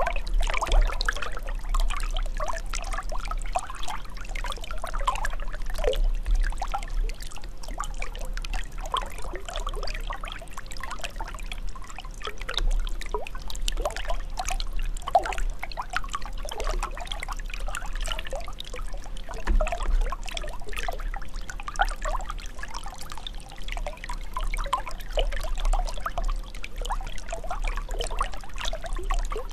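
Running water trickling and bubbling steadily: a constant stream of small, irregular bubbling sounds over a low rumble.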